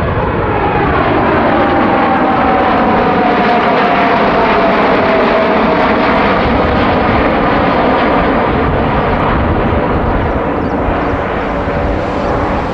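The four GEnx-2B67 turbofans of a Boeing 747-8F freighter at takeoff thrust as it climbs out overhead: a loud, steady engine noise with a whining tone that slides down in pitch over the first several seconds as the jet passes and moves away.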